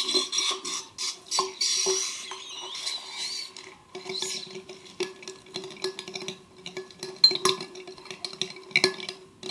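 A water-filled balloon being popped and its water poured into a bowl of glue for slime, with a short splashing rush over the first few seconds, then clinks and knocks of handling against the bowl.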